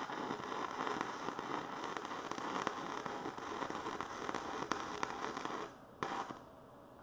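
Electric arc welding on steel bar stock: a steady, crackling sizzle of the arc. It stops about six seconds in, restrikes briefly and cuts out again, the arc dropping out.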